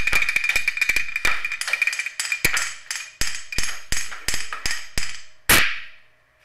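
A quick, irregular run of sharp taps and clicks over a faint steady high tone, ending with one loud hit that rings and fades away about five and a half seconds in.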